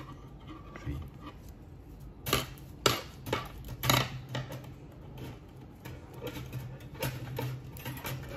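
Handling noise from hands working a uni knot tight in multi-strand cord: irregular soft clicks and rustles, loudest in a cluster around two to four seconds in, over a faint steady low hum.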